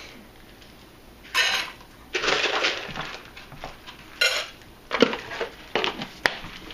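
Dry kibble scooped from a plastic canister and poured into metal pet bowls: several short bursts of rattling kibble. A sharp click near the end as the canister lid goes back on.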